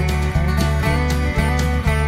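Background music with guitar and a steady beat, about two beats a second.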